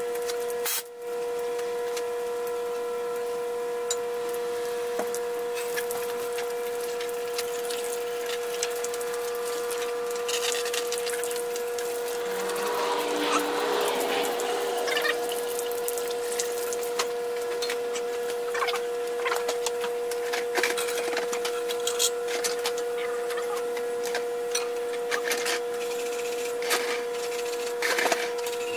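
Water from a hose nozzle spraying and splashing on a bare 7.3 Powerstroke diesel engine block as it is rinsed after cleaning, heaviest about halfway through. Under it runs a steady whining tone that dips briefly about a second in, with scattered clicks and taps.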